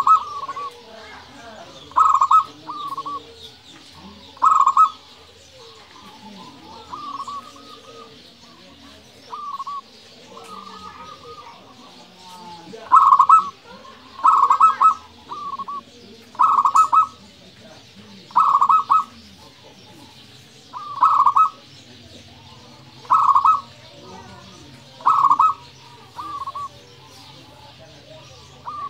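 Zebra dove (perkutut) singing: short, rolling, loud coo phrases repeated about every two seconds, some coming in quick pairs, with softer coos between them.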